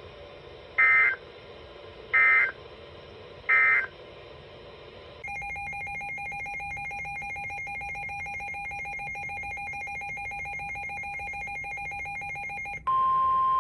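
Emergency Alert System signal starting a severe thunderstorm warning: three short screeching data bursts of the digital SAME header, then a steady electronic attention tone for several seconds. Near the end this gives way to a louder single steady alert tone.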